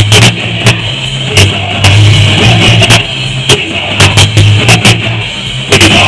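Live punk rock band playing loud: electric guitar and bass guitar over a drum kit, with sharp snare and cymbal hits cutting through a heavy bass.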